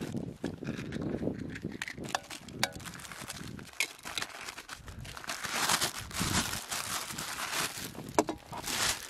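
Thin plastic bag rustling and crinkling in the hands while a small camping cookset is unpacked from it, with a few light clicks as the metal stove parts are handled.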